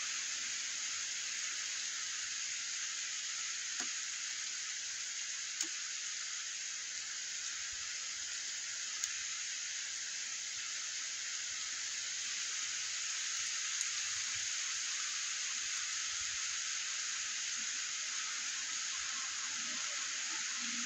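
Steady rain falling on a wet street, an even hiss throughout, with a few faint ticks.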